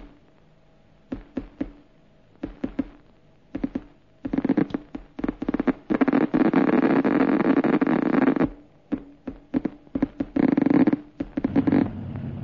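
Helicopter rotor chopping in uneven bursts of rapid pulses, merging into a dense run in the middle and again shortly before the end. A steady low engine hum takes over near the end.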